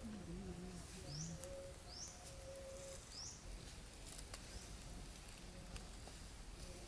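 Wild birds calling in forest ambience: three short, high, rising chirps about a second apart, with a low cooing call at the start. Faint scattered ticks sound over a quiet background.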